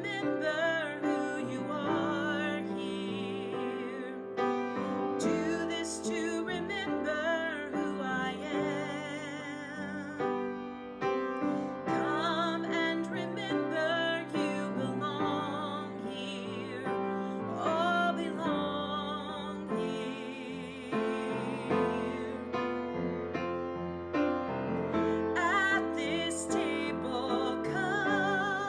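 A woman singing a slow hymn solo with vibrato, over piano accompaniment.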